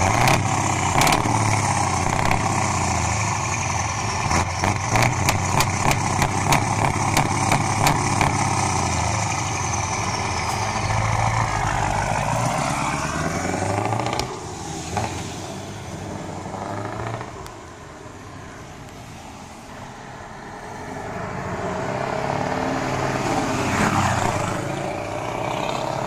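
Scania 144 V8 truck engines through straight-piped side exhausts: loud running with a run of quick revs close to the pipe, then the trucks pulling away one after the other, the engine note rising as each accelerates.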